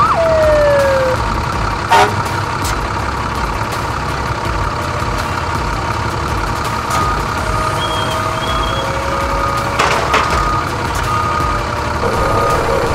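Steady mechanical hum around a parked fire engine, with held whining tones throughout. Two sharp knocks come about 2 s and 10 s in, and short gliding tones come near the start and again around the middle.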